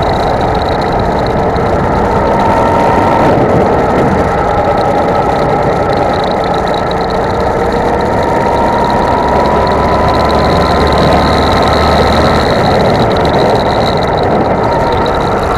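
Go-kart engine running hard at speed, mixed with a loud rush of wind and road noise on an onboard camera. Its pitch climbs slowly through the middle and drops back near the end as the kart slows for a corner.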